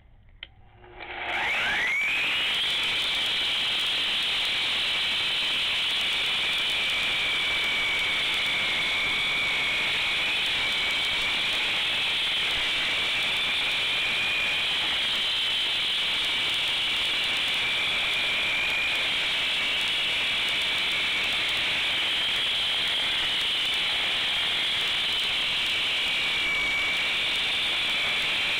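Concrete saw spinning up about a second and a half in, its whine rising quickly, then running steadily as it cuts through the concrete slab.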